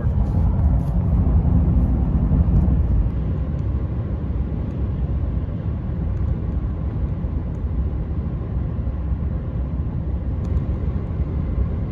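Diesel Chevrolet pickup truck driving at highway speed, heard from inside the cab: a steady low rumble of engine and road noise, a little louder for the first few seconds.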